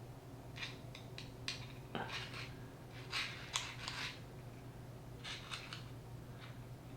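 Scattered light clicks and short scrapes of small RC transmission parts being handled while grease is worked into the gearbox, over a steady low hum.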